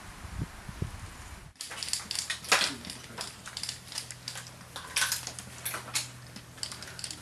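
Irregular run of sharp clicks and knocks from a biathlon shooting range, with a few louder cracks among them: small-bore biathlon rifles being handled and fired. A low steady hum sits underneath.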